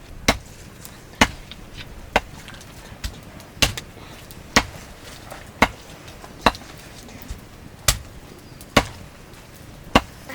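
Chopping with a blade: about a dozen sharp strikes, roughly one a second and unevenly spaced.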